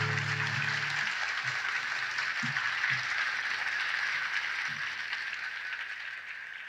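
Audience applauding, a dense crackle of clapping, with the last guitar chord dying away in the first second. The applause fades out gradually toward the end.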